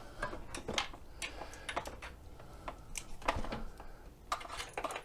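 Irregular light clicks and taps of mobility-scooter parts being handled and fitted by hand.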